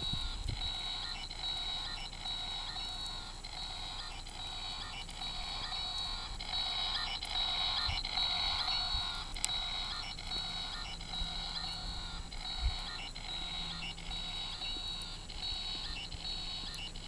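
A discarded battery-powered toy's electronic sound chip playing a steady, evenly repeating beeping tune, from inside a plastic garbage bag.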